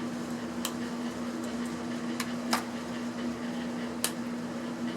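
A handful of short, sharp clicks as a hand screwdriver works small screws out of an electronic device's plastic case, over a steady low hum.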